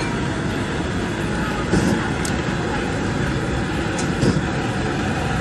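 A stove burner under an aluminium pot running with a steady low rumble, with a few light taps as bamboo chopsticks stir dumplings and greens in the boiling water.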